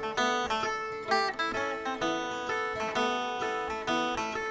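Background music: a plucked stringed instrument, sounding like an acoustic guitar, picks a lively tune of quick notes that start sharply and fade.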